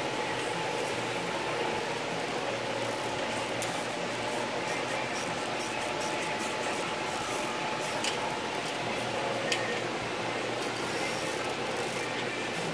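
Aviation snips cutting notches in thin white sheet-metal trim, a few short sharp snips over a steady machine hum in the background.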